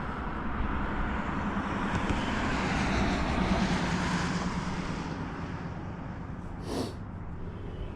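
A passing engine, growing louder to a peak about three to four seconds in and then fading, with a steady low hum under it. A brief sharp noise comes near the end.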